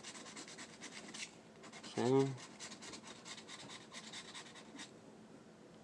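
A scratch-off lottery ticket being scratched in a quick run of dry, rasping strokes, which stop near the end.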